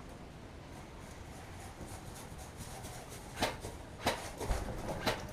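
Three sharp, short clicks in the second half, spaced under a second apart, over low background noise.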